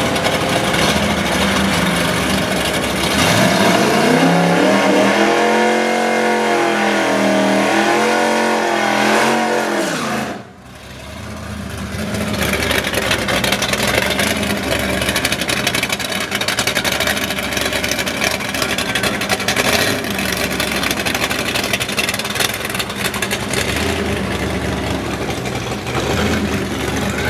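Chevrolet Camaro engine revving hard, its pitch rising and falling repeatedly for several seconds before the sound cuts off abruptly about ten seconds in. Then there is a steady rumble of drag cars' engines idling.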